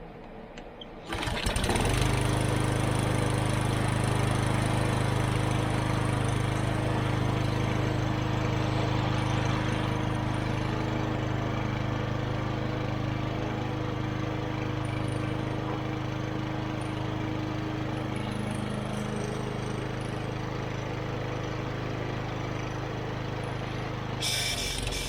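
Kohler 6.5 torque single-cylinder lawn mower engine pull-started, catching about a second in without starter fluid, then running steadily after its carburetor butterfly was refitted the right way round. It stops near the end.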